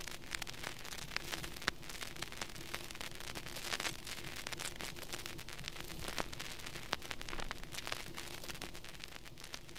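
Faint outdoor background noise picked up by a handheld camera's microphone: a steady hiss with scattered sharp clicks and a faint low hum.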